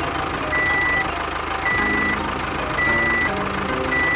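A heavy truck's reversing alarm beeping steadily, about one beep a second, over the engine running.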